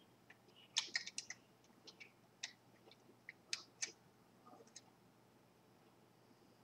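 Faint sharp plastic clicks and taps from a Lego helicopter model being handled and its parts moved. There is a quick cluster of clicks about a second in, then scattered single clicks.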